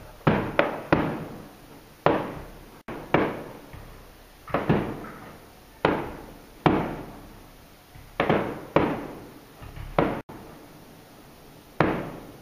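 Aerial firework shells bursting: about a dozen sharp bangs at uneven intervals, several coming in quick pairs, each dying away in an echo.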